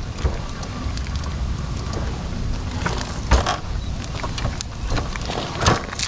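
AmySystems R3 power wheelchair driving off a curb of about four and a half inches, over a steady low rumble of wheels and wind. There is a sharp thump a little over three seconds in and another near the end.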